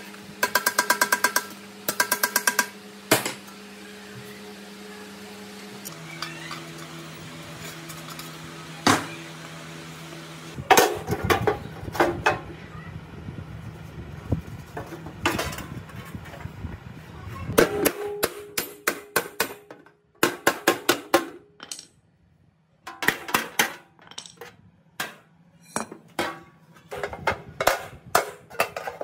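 Steel hammer rapidly tapping dents out of a thin sheet-metal drill cover, in several quick runs of blows separated by pauses, the metal ringing with each strike.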